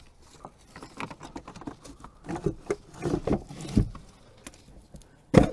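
Irregular light knocks and rustling as a nylon load strap is handled around a 12-volt car battery sitting in its tray, with one sharp knock near the end.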